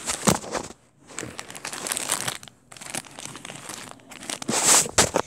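Plastic candy wrappers crinkling as they are handled and moved about, in irregular rustles with louder bursts near the start and near the end.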